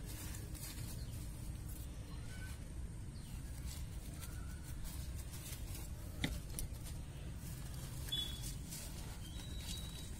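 Hands rustling and crunching dry leaf litter and crumbly soil while pressing turmeric rhizomes into a grow bag, with a sharp click about six seconds in. Under it is a low steady rumble, and a few faint, short bird chirps come now and then.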